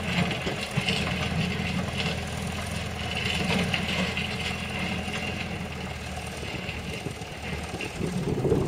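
Diesel engine of a Volvo backhoe loader running steadily as the machine drives along a rough gravel track, with light clatter over the low engine hum and a louder swell near the end.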